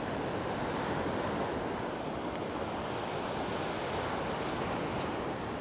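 Small surf washing steadily onto a sandy beach, a continuous even rush of water with some wind.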